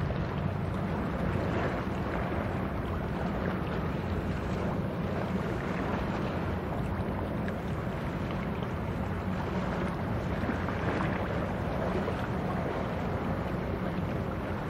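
Steady low drone of a passing coastal cargo ship's diesel engine, mixed with wind on the microphone.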